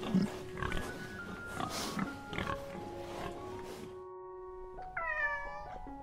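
Pigs grunting and snuffling as they root with their snouts in loose soil, over background music. About five seconds in, a cat meows once, a single call about a second long.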